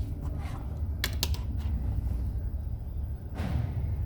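A few light, sharp clicks of small hand tools against a circuit board during soldering, over a steady low hum, with a soft rush of noise near the end.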